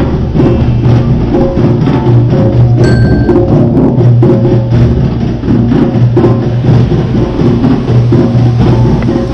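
Background music with a steady percussive beat and pitched notes.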